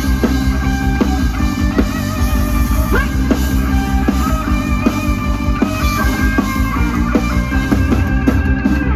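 Instrumental break in a song: a lead melody over bass and a drum kit keeping a steady beat, with no singing.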